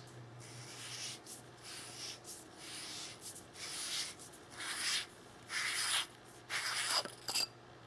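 Threaded battery cap of a Nitecore TM26 flashlight being unscrewed by hand, its aluminium threads rasping in a series of short scratchy strokes as the hand regrips, about three full turns in all.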